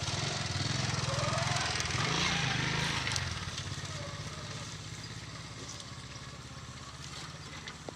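A small engine running with a steady low throb, growing gradually fainter after about three seconds.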